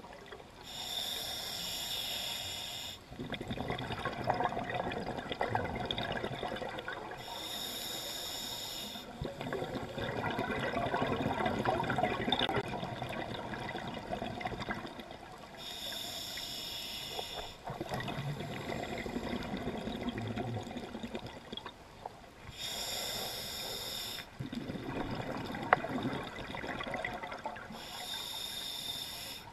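Scuba diver breathing through a regulator underwater: five hissing inhalations of a second or two each, every five to seven seconds, each followed by a longer rush of exhaled bubbles.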